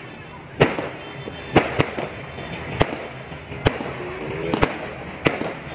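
Aerial fireworks going off: about seven sharp, separate bangs, roughly one a second.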